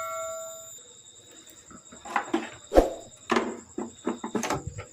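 A bell-like chime sound effect fades out in the first second. Then comes a string of irregular knocks and clicks, as of hands and tools on a CRT television being taken apart, the sharpest about three seconds in, over a faint steady high-pitched whine.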